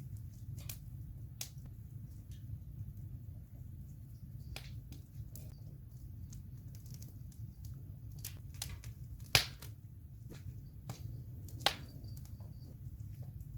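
Wood campfire burning, with a steady low rumble and irregular small crackles. Two sharp, much louder pops come a little past the middle and again about two seconds later.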